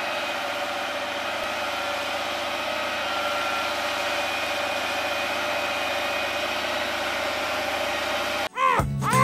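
Large farm tractor's engine running steadily under load while pulling a plough through soil; the sound cuts off near the end.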